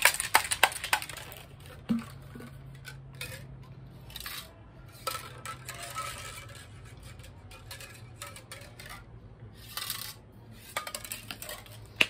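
Stainless-steel shaker bottle of whey protein drink clinking and rattling as it is handled: a quick run of rattling clicks in the first second, then scattered metallic taps, over a low steady hum.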